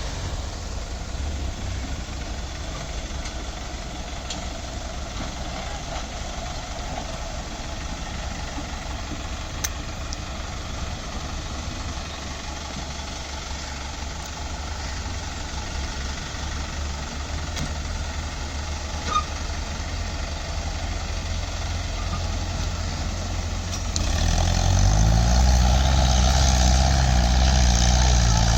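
Diesel tractor engine running steadily at low revs, then about 24 seconds in a louder engine revs up, its pitch climbing, and keeps running hard.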